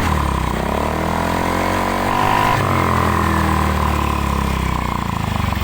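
Yamaha Mio 125 scooter's single-cylinder engine revved up and back down: its pitch rises for about two and a half seconds and then falls back toward idle. The valves are freshly lapped, curing the loose compression that had made it stall and lose its idle.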